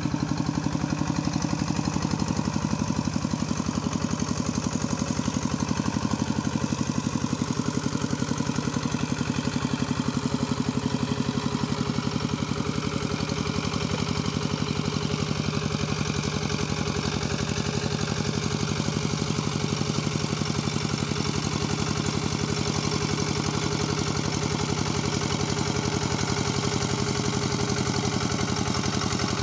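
Kubota two-wheel walking tractor's single-cylinder diesel engine running steadily with a fast, even chugging pulse.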